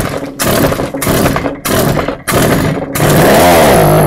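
Two-stroke string trimmer engine being pull-started: several quick pulls of the recoil starter cord, then about three seconds in the engine fires and runs with its speed rising and falling. It is running only on starter fluid sprayed into the carburetor, the sign that the carburetor is not delivering fuel.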